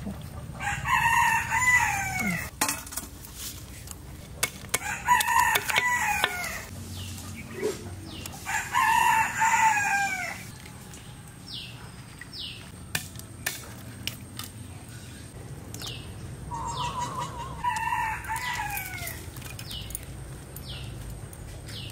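A rooster crowing four times; each crow lasts about one and a half to two seconds and falls in pitch at its end. Short, high, falling chirps and light clicks of crab shells being handled come between the crows.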